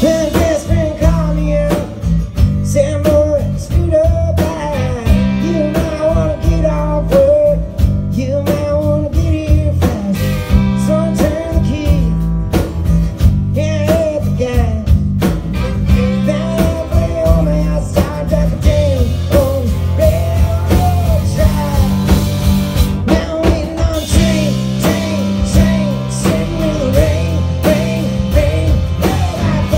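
Live rock band playing, with a man singing lead over drums, electric and acoustic guitars and fiddle.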